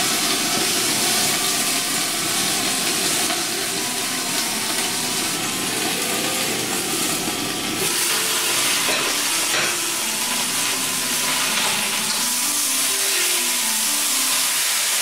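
Chinese broccoli (kai-lan) sizzling and steaming in a hot stainless steel pan, a steady hiss. Around eight to ten seconds in there are a few short knocks as the glass lid comes off, and near the end a wooden spatula stirs the greens.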